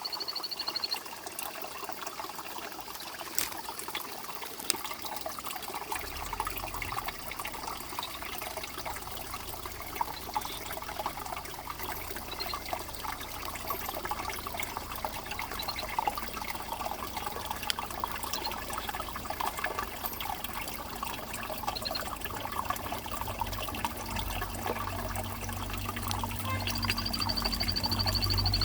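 Stream water running steadily, with a Hylodes torrent frog giving its high, rapidly trilled whistle call briefly at the start and again near the end, plus a few faint single high notes in between. A low rumble comes in about six seconds in.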